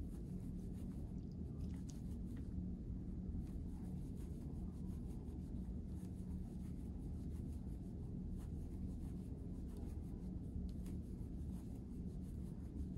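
Quiet rustling and rubbing of yarn being drawn through stitches with a metal crochet hook while double crochets are worked, with faint scattered light ticks over a steady low hum.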